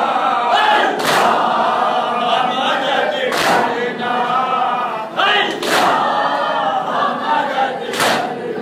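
Crowd of men chanting a Muharram mourning lament (noha) in unison, with four loud communal chest-beating slaps (matam) struck together about every two seconds.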